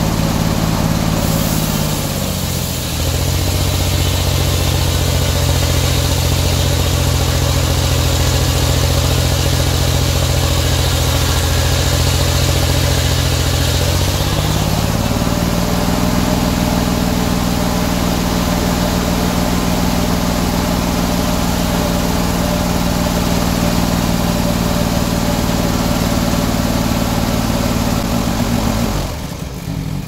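Engine of an antique circular-saw sawmill. Its pitch drops as the large blade bites into a pine log and stays low under load, with the hiss of the cut, for about twelve seconds. It then climbs back as the blade clears the cut and runs free. Near the end the sound falls off.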